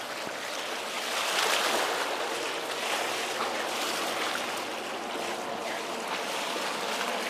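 Sea surf washing against a rocky seawall, a steady rush of water that swells slightly about a second in.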